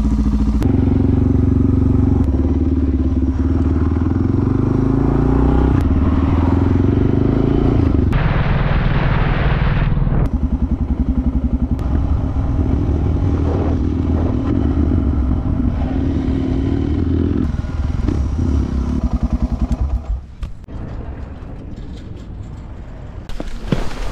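Dual-sport motorcycle engine pulling away and accelerating through the gears, its pitch climbing and falling back with each shift, with a couple of seconds of wind rush on the microphone. The engine then runs steadily and eases off. After that comes quieter indoor background with a few clattering knocks near the end.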